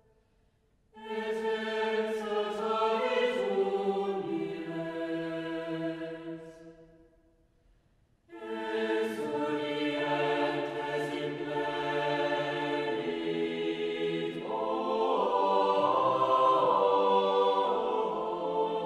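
Chapel choir singing a chant in several parts: one phrase that dies away about six to seven seconds in, then after a short gap a second, longer phrase that swells near the end.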